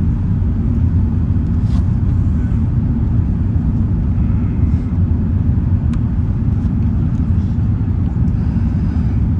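Steady low rumble of an Airbus A380-861 cabin in the climb after takeoff: the Engine Alliance GP7270 engines and the airflow over the fuselage heard from a window seat, even and unbroken.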